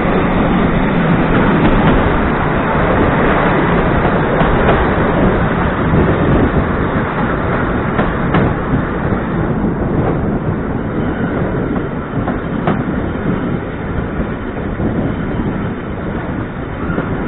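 Train running along the track: a steady rumble and rush of wheels on rails, with a few sharp clicks over the rail joints, easing off a little in the second half.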